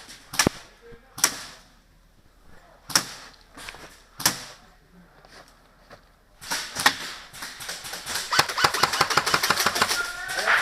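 Airsoft guns firing: a few scattered single shots with sharp cracks, then from about six and a half seconds in a long rapid full-auto burst of fast clicking shots.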